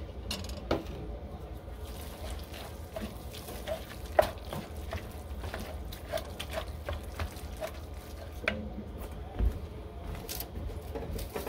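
Wooden spoon stirring and scraping shredded chicken in a cast-iron Dutch oven, with irregular knocks of the spoon against the pot, a few of them sharper. A steady low hum runs underneath.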